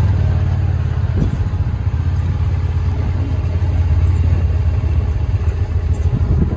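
Utility vehicle (side-by-side) engine running as it drives slowly over pasture: a steady low rumble.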